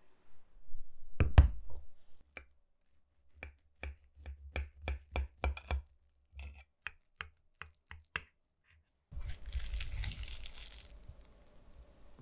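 A glass baking dish is set down on a wooden trivet with a couple of heavy knocks. A knife then cuts through a baked, cheese-topped cabbage casserole in a long series of sharp clicks and taps. Near the end comes a scraping rustle as a slice is lifted out of the dish.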